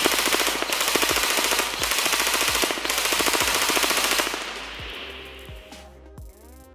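Apex Fast Attack 802 airsoft electric gun (M4-style AEG on a 7.4 V LiPo) firing full-auto: a rapid, even rattle of shots for about four seconds, then stopping and fading away. Background music plays underneath.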